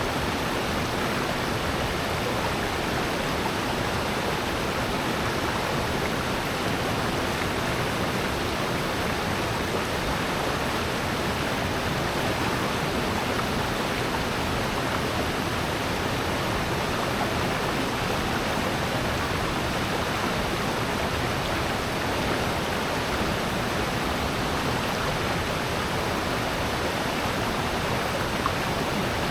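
Mountain stream and waterfall in a valley, water rushing and splashing in a steady, unbroken rush.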